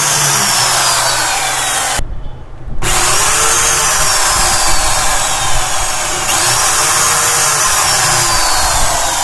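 Corded electric drill running against a wooden kitchen-cabinet board in two runs: about two seconds, a brief stop, then a longer run of about six seconds. Its motor pitch rises and falls as it runs.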